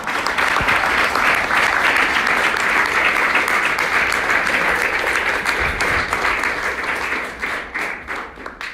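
Audience applauding, a room of people clapping together, with one clapper close to the microphone. It starts all at once, holds steady, then thins into a few separate claps near the end and stops.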